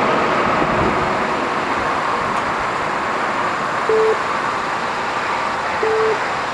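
Steady road-traffic noise. Two short mid-pitched beeps sound about two seconds apart, one in the middle and one near the end.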